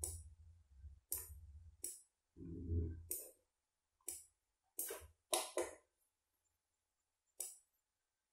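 Computer mouse clicking irregularly, about nine sharp clicks, as vector outline points are selected and dragged in a drawing program. Low rumbles sound in the first three seconds.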